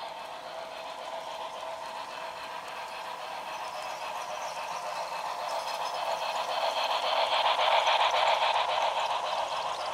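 Broadway Limited Santa Fe Blue Goose 4-6-4 model steam locomotive running on track with a clicking rattle. It grows louder as it approaches, is loudest about eight seconds in as it passes, then begins to fade.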